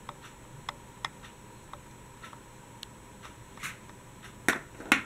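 Light clicks and taps of small diecast toy trains being handled and set down on a wooden table, with two sharper knocks near the end.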